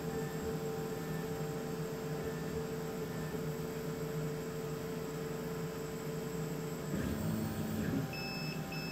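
Laser cutter running with a steady hum while it cuts plywood. About seven seconds in, the hum changes and a short whir follows as the head travels back to its home corner. Near the end come two short high beeps as the job finishes.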